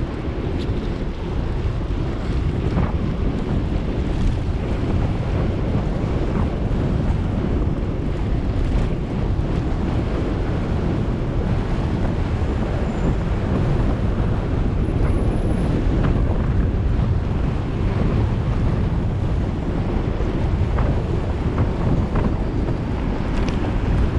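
Wind buffeting an action camera's microphone while riding along a wet city road, a steady low rumble, mixed with road and traffic noise.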